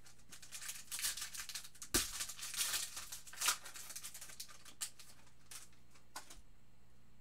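Foil wrapper of a 2017 Optic football card pack being torn open by hand, crinkling and crackling, with a sharp snap about two seconds in. A few light clicks follow near the end as the cards are taken out and handled.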